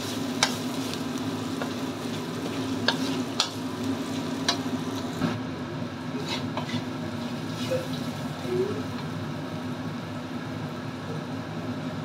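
Ground spice paste sizzling in oil in a wok while a metal spatula stirs it, with sharp clinks and scrapes of the spatula against the pan, most of them in the first half. A steady low hum runs underneath.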